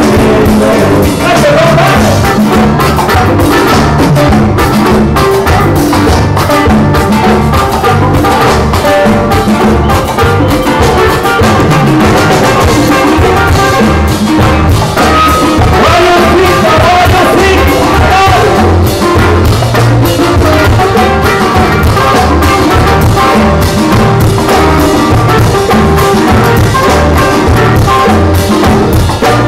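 Live amplified band playing Latin music: several strummed acoustic guitars over congas and electric bass, loud and steady throughout.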